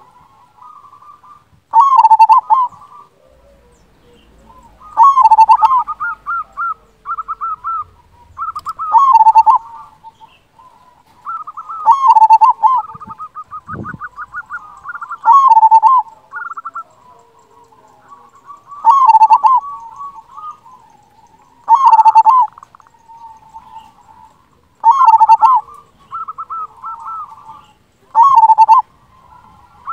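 Local zebra dove (perkutut) singing its cooing song over and over, about nine loud phrases roughly every three seconds, each a quick rippling run of notes ending in a strong coo. Fainter cooing and trills carry on between the phrases.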